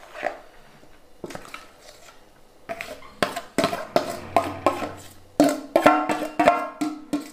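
Stainless steel bowl knocked and scraped while soaked puffed rice is emptied out of it, each knock ringing briefly. The knocks are sparse at first, then come quicker and louder in the second half.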